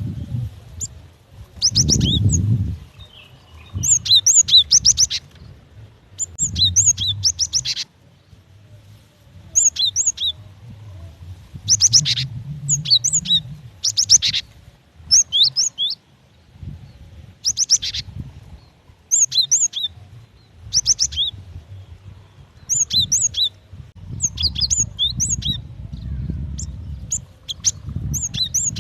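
Female cinereous tit calling: short bursts of quick, high chirping notes, repeated every second or two, over a faint low rumble. It is the female's call to a male, used as a lure to set males singing.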